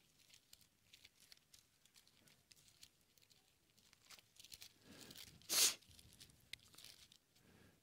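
Thin Bible pages being turned by hand: faint flicks and soft paper rustling, with one louder rustle about five and a half seconds in.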